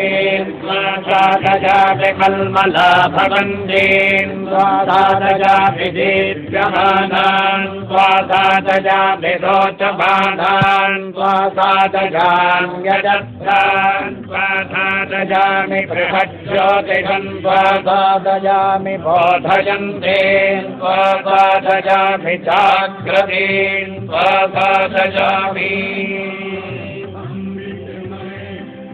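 Indian devotional music, a melodic chant-like line over a steady drone, getting quieter over the last few seconds.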